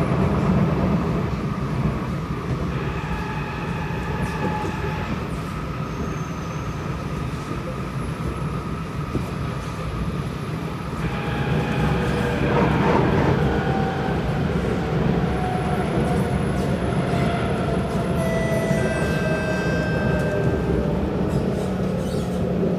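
Kawasaki C751B MRT train running, with a steady low rumble under several whining electric traction motor tones. About eleven seconds in, the set of motor tones changes, and in the last few seconds several of them slide down in pitch.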